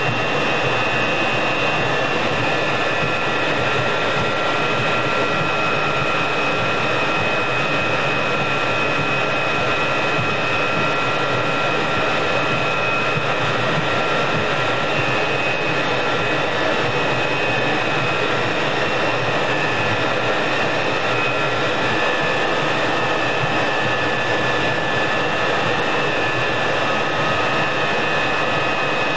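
Jet engine running steadily: an even rush of noise with a constant high-pitched whine.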